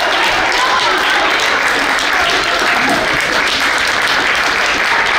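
Sustained applause from a crowd of players and spectators clapping hands, with a few voices calling out about half a second in.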